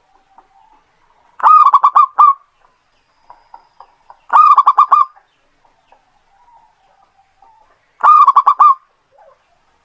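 Zebra dove (perkutut) singing three phrases, each a quick run of five or six cooing notes, about three seconds apart.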